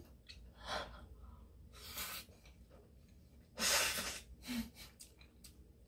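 A person breathing with a mouthful of food: a few short, faint breaths through the nose, then one louder, sharp burst of breath about three and a half seconds in, stifled behind a hand.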